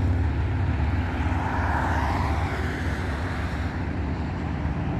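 Road traffic of motorcycles and cars going by, a steady low engine rumble with one vehicle swelling past about two seconds in.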